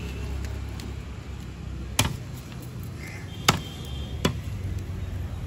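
Heavy knife chopping through a large catla fish onto a wooden log block: three sharp chops about two, three and a half, and four seconds in, the middle one loudest.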